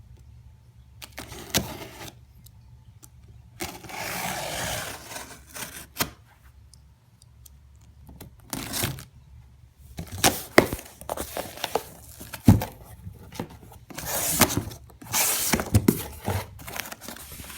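A cardboard shipping box being opened by hand: packing tape torn and cardboard and packing material scraped and crinkled. It comes in irregular bursts with short pauses, with a longer tearing stretch about four seconds in and a run of sharp crackles and scrapes in the second half.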